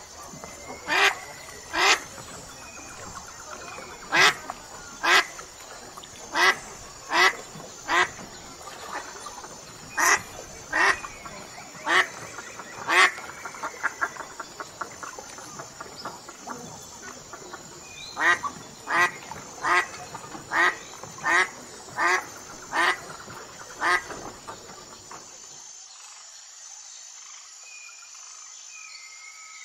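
Mallard duck quacking: loud single quacks, roughly one a second, in several runs with short pauses between them, stopping about four seconds before the end.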